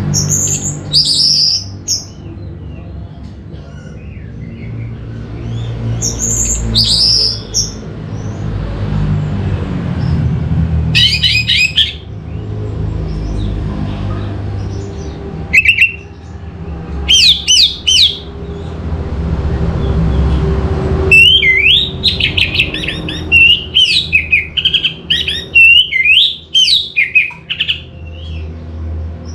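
Orange-headed thrush singing in short, high, quickly warbling phrases separated by pauses. About three-quarters in, it breaks into a longer run of fast, varied notes. A low rumble runs underneath.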